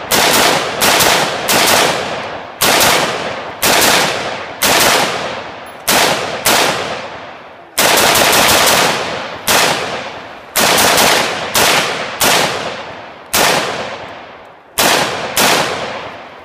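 Diamondback AR-15 rifle fired rapidly in semi-automatic, a magazine dumped at about two shots a second with short pauses. Each sharp crack trails off in an echo, and the firing stops shortly before the end.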